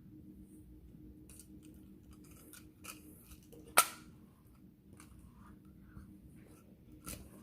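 Magnetic building blocks clicking together as they are snapped into place, a few light clicks with one sharp, louder click a little before halfway.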